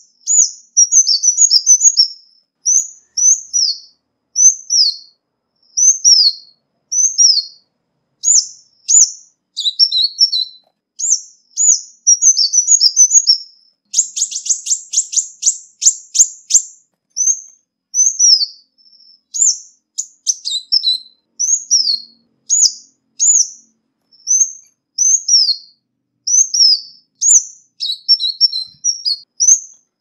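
Ruby-cheeked sunbird calling: short, high, sharply falling notes repeated about once a second, mixed with quick twittering clusters. About halfway through comes a rapid ticking rattle that lasts two to three seconds.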